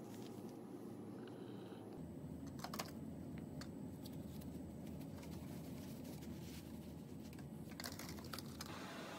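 Steady low room hum with a few short clicks and rustles from handling pipe insulation and its paper-like white jacketing: one pair of clicks almost three seconds in and a brief cluster near the end.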